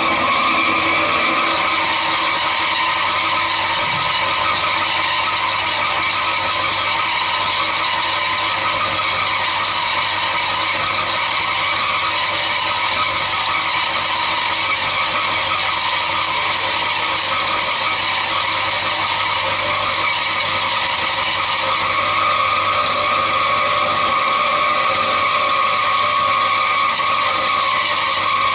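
Cormak G5025 metal band saw running with a steady mechanical whir and a high ring, which grows stronger about three quarters of the way through.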